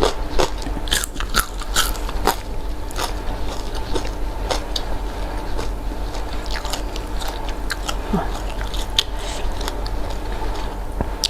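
A person eating close to the microphone, chewing and crunching food from a Sundanese meal of salted fish, rice and raw vegetables and jengkol, with many short crisp crunches scattered through the chewing.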